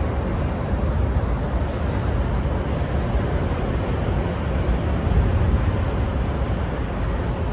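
Freight train of covered hoppers and boxcars rolling slowly past, a steady low rumble of steel wheels on rail.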